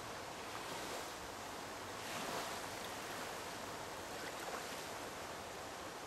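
Chattahoochee River running fast and choppy with released dam water, small waves washing against the muddy bank in a steady rush, a little louder about two seconds in.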